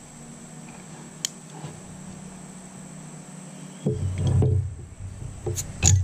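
Handling of a steel multitool and a glass bottle: a single sharp click about a second in, then low, heavy thumps and rustling from about four seconds, and a few sharp clicks and clinks near the end.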